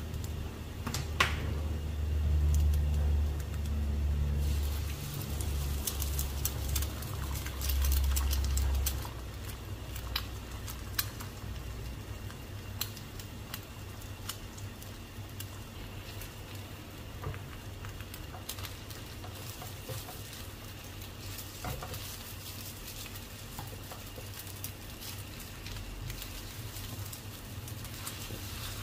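Eggs frying in oil in a wok, with a sizzle and a spatula scraping and tapping against the pan. A low hum sits under the first nine seconds or so.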